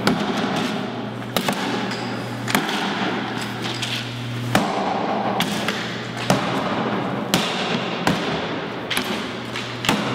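A sharpened steel sword striking a round balsa-wood plank shield built with paper and hide glue: about nine sharp blows, a second or so apart. A steady low hum runs underneath.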